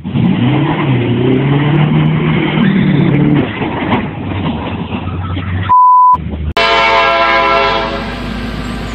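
A car engine revving up and down while the car slides on gravel, then a short single-tone censor beep, then a long steady horn blast, typical of a train horn sounding at a level crossing.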